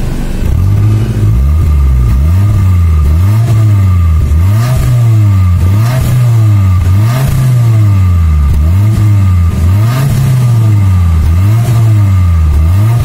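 Hyundai Accent engine heard at the tailpipe, blipped over and over in a steady rhythm, its pitch rising and falling about nine times. This is the plain exhaust with no turbo-whistle attachment fitted.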